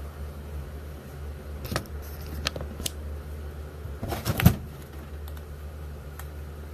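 Small everyday items being handled and slipped into jeans pockets: scattered clicks and cloth rustles, the loudest cluster about four seconds in, over a steady low hum.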